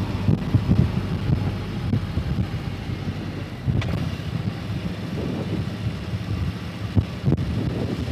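Harley-Davidson motorcycle riding through city streets, heard from the rider's helmet microphone: a low, fluctuating engine rumble mixed with wind buffeting on the mic.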